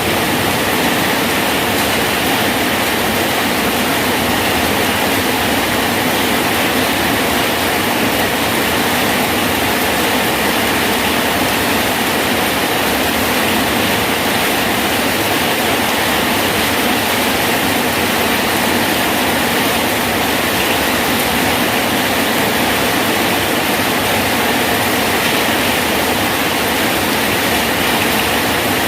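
Rain falling steadily on a bridge: an even, unbroken hiss with no separate drops or thuds standing out.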